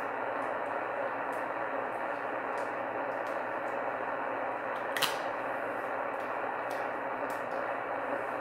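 Shortwave receiver tuned to 27.385 MHz (CB channel 38, lower sideband) giving a steady band of static hiss with no station coming through, and a sharp click of static about five seconds in.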